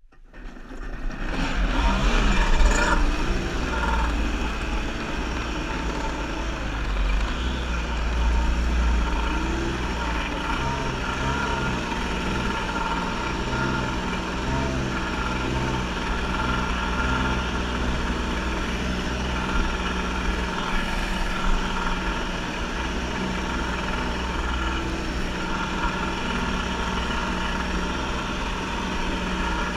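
Kawasaki JS550 jetski's two-stroke twin engine running steadily under way, with the rush of water spray off the hull. It fades in over the first couple of seconds, then holds a steady pitch and level.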